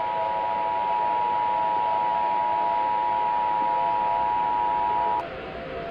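Emergency Alert System attention signal: two steady tones sounding together as one harsh alarm, cutting off about five seconds in and leaving a faint hiss.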